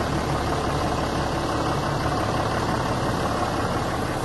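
A vehicle's engine running steadily at low speed while driving, with a continuous low drone and no changes.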